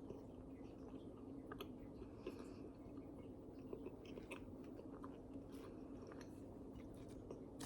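A person faintly chewing a mouthful of sourdough-style bread, with soft scattered wet clicks of the mouth.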